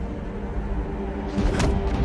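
Tense film score over a low drone, with a sudden sharp fight sound effect about one and a half seconds in.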